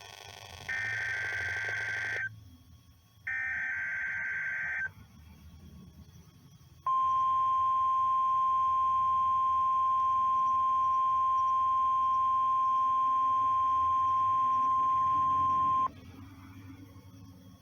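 NOAA Weather Radio weekly test signal: two bursts of SAME digital header data, each about a second and a half long with a second between them, then after a two-second pause the steady 1050 Hz warning alarm tone, held about nine seconds and cutting off abruptly.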